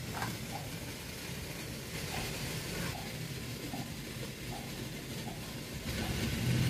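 Steady hiss of water boiling under a stainless steel steamer pot on a gas burner, with a few faint light taps. A low steady hum comes in near the end.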